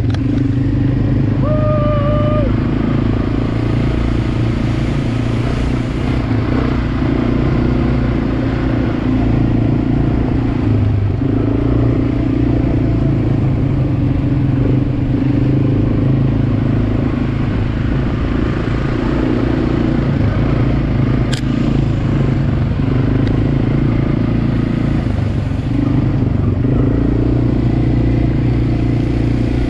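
ATV (quad bike) engine running steadily while being ridden along a trail, heard up close from the rider's seat.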